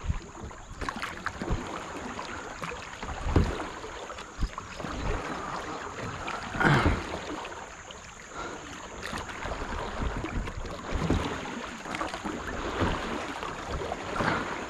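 Kayak paddle strokes dipping and splashing in river water, with irregular splashes every couple of seconds over a steady wash of moving water.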